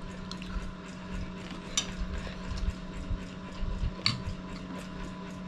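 Metal spoons clinking and scraping on ceramic plates of rice during a meal, with two sharp clinks about two seconds in and about four seconds in, over a steady low hum.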